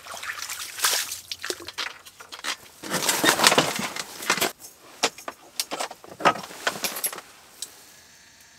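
Irregular rustling, clicks and knocks of ice-fishing gear being handled, with a longer scraping rush about three seconds in; the sounds thin out and fade near the end.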